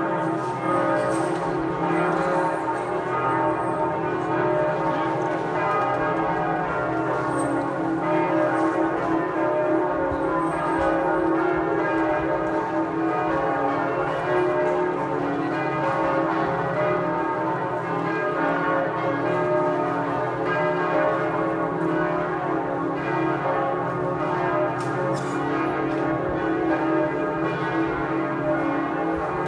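Several church bells pealing together, ringing continuously.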